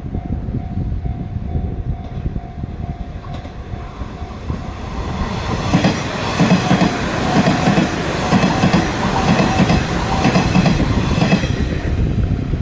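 A Sanyo Electric Railway train passing a level crossing, growing louder from about 4 seconds in. Its wheels clack in a steady rhythm over the rail joints until it has gone by near the end. A level crossing warning bell's steady tone sounds throughout.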